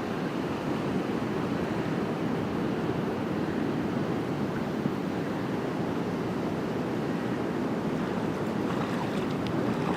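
Steady outdoor rushing noise of wind on the microphone and moving water, with no motor tone standing out.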